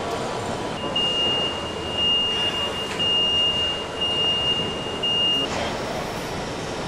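An industrial warning buzzer gives a high, steady tone for about four and a half seconds, broken by a few short gaps, over the steady rumble of heavy machinery in a large factory hall.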